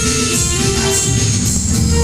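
Live instrumental music over a PA: a keyboard melody with sustained tones over a steady beat from an electronic drum pad.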